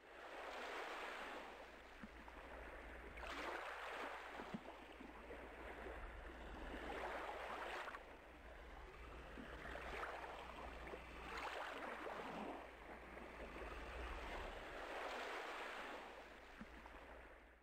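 Faint outdoor ambience: a rushing noise that swells and fades every two to four seconds over a steady low rumble.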